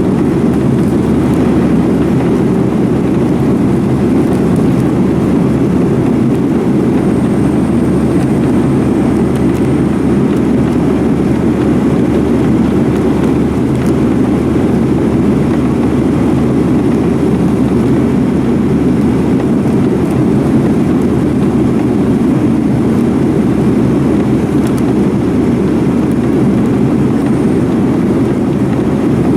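Inside the cabin of a Boeing 737-900ER, its CFM56-7B jet engines running steadily at high power, heard as a constant loud low rush of engine and air noise.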